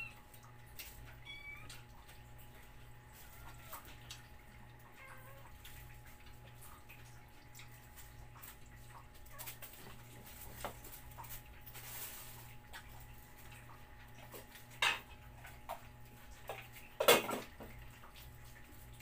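House cats meowing now and then, begging for food, over a low steady hum. Two short, sharp louder noises come late on.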